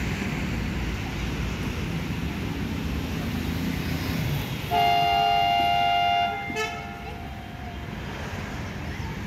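Train horn sounding one steady blast of about a second and a half, about halfway in, with a short second toot just after, over a steady low rumble of the train at the platform.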